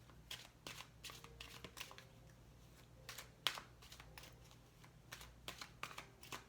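Oracle cards being shuffled and handled: soft, irregular rustles and snaps of card stock, with one sharper snap about three and a half seconds in.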